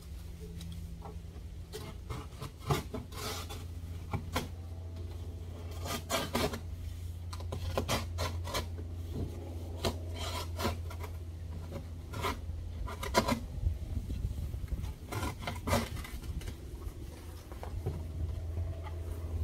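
Large cardboard shipping box being opened by hand: irregular scraping, rubbing and tearing strokes of cardboard, in short runs throughout.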